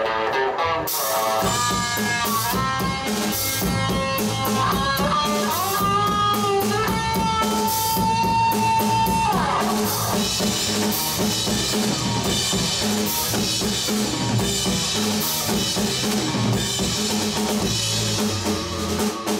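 Live rock power trio playing an instrumental passage: a lead line on electric guitar with bent notes and a long held note that slides away about nine seconds in, over bass guitar and a drum kit. The drums come in about a second in, and the cymbals are busier from about ten seconds on.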